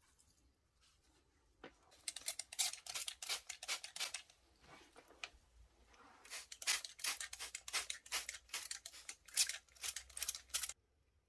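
Quick repeated hand scraping strokes on a small model car part, about three or four a second, in two runs with a brief softer gap, stopping abruptly near the end.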